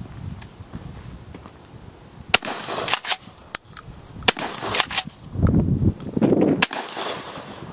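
Remington 887 pump-action 12-gauge shotgun firing bolo rounds: several sharp shots in quick succession, the first one the loudest.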